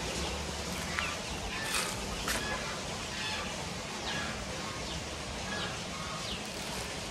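Farmyard birds calling: many short, scattered calls, with a few quick falling chirps.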